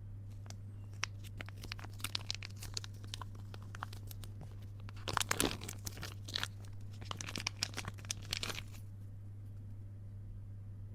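Packaging being torn open and crinkled by hand: irregular crackling and ripping, busiest about halfway through, stopping a couple of seconds before the end. A steady low hum runs underneath.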